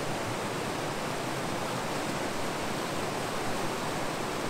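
Mountain stream rushing down small whitewater cascades over rock ledges: a steady, even rush of water.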